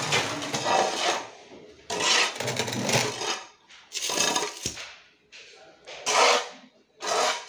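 Metal blade of a short-handled hand hoe scraping and scooping potting soil across a tiled floor, in about five rough strokes a second or two apart.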